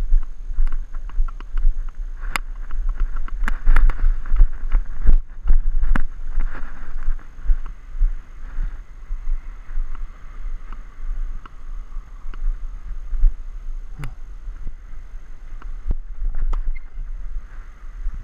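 Wind buffeting a GoPro's microphone with an uneven rumble, over footsteps on a hard tennis court and a few sharp knocks, the loudest a couple of seconds in, then a little after three seconds, and again near the end.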